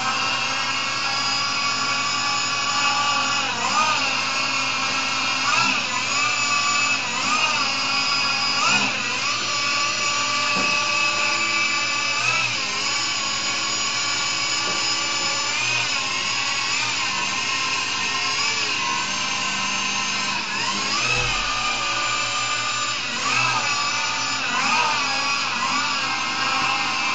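Brushless DC motor and its driver whining, a stack of steady high tones. Several times the pitch sweeps briefly up and back down as the speed and angle controllers swing the long pole to a new target angle and hold it there.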